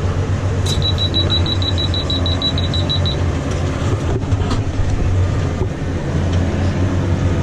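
Tractor engine running steadily while it pulls a Claas Uniwrap round baler through the windrow. Just under a second in, a quick run of high electronic beeps starts, about six or seven a second, and stops about three seconds in.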